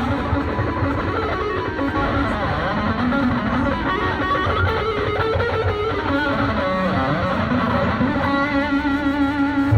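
Music led by electric guitar, with sustained notes that waver in pitch over a steady low end, as from a band playing through an amplified system during a sound check.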